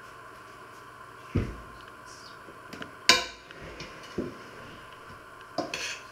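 A stainless steel cooking pot and a metal spoon clanking and knocking as they are handled and set down on a wooden worktop: a dull thump, then a sharp ringing clank about three seconds in, the loudest, followed by a few lighter knocks.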